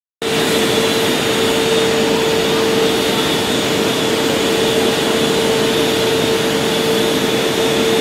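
Steady loud industrial roar with a constant humming tone, in a steel melt shop while an open hearth furnace is charged with molten metal from a crane ladle.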